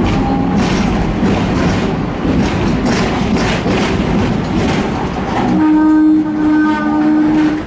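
Hong Kong double-decker electric tram running along its tracks, heard from inside the lower deck: a dense rumble of steel wheels on rail with repeated rattles. About five and a half seconds in, the rattle drops away and a steady hum takes over.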